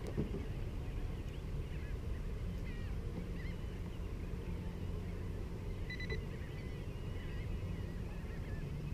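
A flock of birds calling: many short, overlapping chirping calls, with a clearer doubled note about six seconds in, over a low steady wash of wind and water noise.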